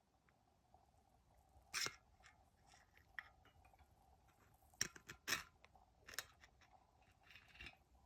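Near silence with faint, scattered clicks and scrapes of engine parts being handled during a teardown, the loudest a few knocks about five seconds in, over a faint steady hum.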